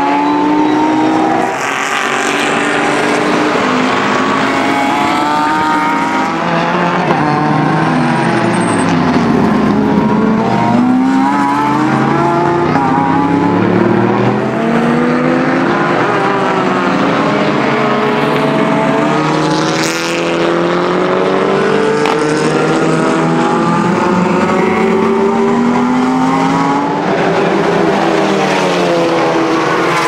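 Race car engines lapping a circuit, led by a Renault Mégane Trophy's V6. Several engine notes overlap, climbing in pitch under acceleration and dropping off on lifts and downshifts, over and over as the cars pass.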